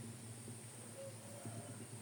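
Faint steady low hum with no bird call, and a brief faint tone about a second in.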